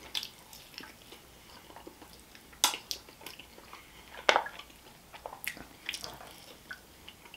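Close-miked chewing and biting of a barbecue pork riblet: soft wet mouth sounds, broken by a few sharp clicks, the loudest about two and a half and four seconds in.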